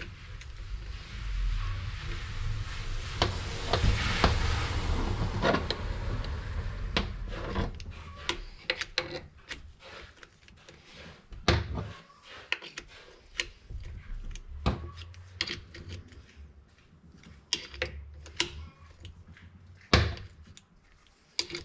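Hand tools working the bolts of a Tofaş four-speed gearbox on a steel bench. For the first several seconds a socket wrench gives a rasping run of dense ratchet clicks. After that come scattered sharp metal clicks and clinks of tools against the casing and bench.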